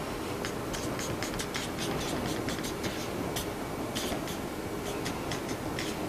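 A marker writing on a whiteboard: a run of short scratchy strokes and taps over a steady background hiss.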